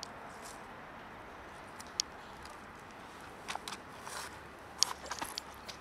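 Faint steady outdoor background, with a few short dry crackles and rustles from about three and a half seconds in.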